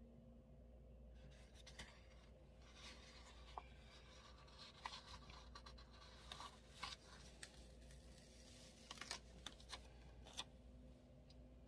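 Faint rustling and scratching of paper being handled, with light irregular ticks, from about a second in until near the end: a sticker book and sheets of planner stickers being shuffled.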